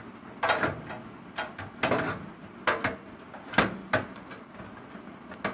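Motherboard being fitted into a steel computer case: a string of about seven irregular clicks and knocks as the board is shifted against the case and its rear ports are lined up with the case openings.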